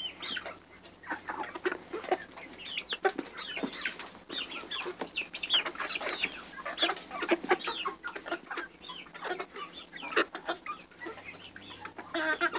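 A flock of young hens clucking and chirping, with many short, downward-sliding calls overlapping one after another.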